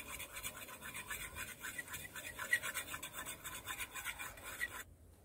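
A spoon stirring and scraping around a metal pot as curry powder fries in hot oil, in quick, even strokes about five or six a second. The strokes stop suddenly near the end.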